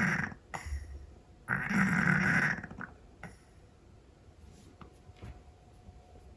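Scottish Fold cat snoring noisily: one snore ends just after the start, and another comes about a second and a half in and lasts about a second, followed by a quieter stretch.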